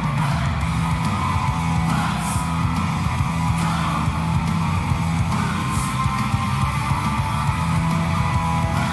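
Rock music with distorted electric guitar and a steady beat with regular cymbal crashes, played as an NHL goal celebration song.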